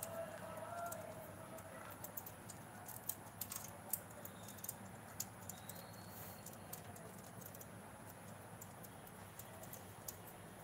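Faint, irregular light clicking and tapping of a parakeet's claws and beak on a plastic-mesh cage top as it steps about and pecks, thickest in the first half.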